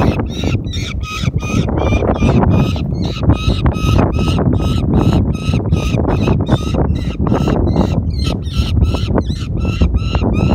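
A hawk calling over and over, a rapid string of harsh cries about four a second, with wind rumbling on the microphone.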